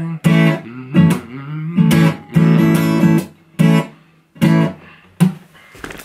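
Acoustic guitar strummed in short, choppy chord strokes with brief gaps between them, the bouncing reggae off-beat strum. A last chord is struck about five seconds in and left to fade.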